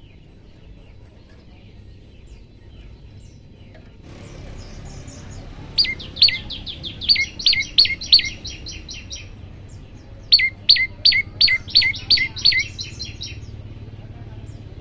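Prenjak lumut singing: two loud, rapid phrases of sharp, high, sweeping notes, each about three seconds long, with a short pause between them, over a faint low hum.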